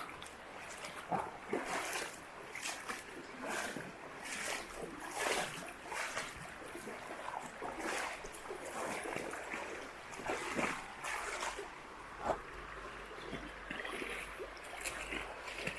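Footsteps crunching and splashing over wet stones and shallow water of a mountain river, about one to two steps a second, with the river running over the stones.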